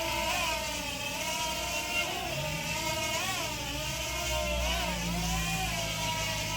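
Small quadcopter's motors whining continuously, the pitch rising and dipping as the throttle changes in flight.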